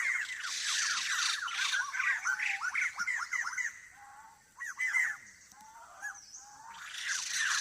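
Several forest birds calling together in a dense run of rapid, chattering, squawky notes. The calling is strongest for the first few seconds, thins out to a single short burst about five seconds in, and builds again near the end.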